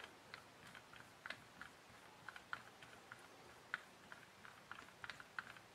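Faint, irregular light clicks, a few a second, from the syringe control unit of a queen-bee instrumental insemination device as its coarse adjustment is worked to push fluid through the capillary tubing and fill the system.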